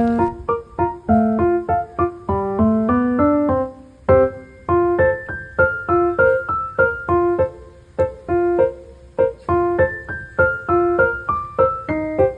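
Background piano music: a light melody of quick, separate notes.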